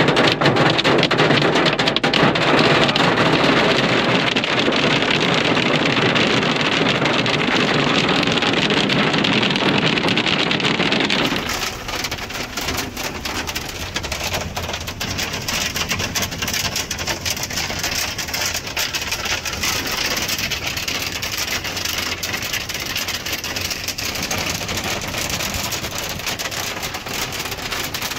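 Rain and pea-sized hail hitting a vehicle's roof and windows, heard from inside the cab as a dense, loud, steady patter. About eleven seconds in it changes abruptly to a thinner, crisper patter of separate hits.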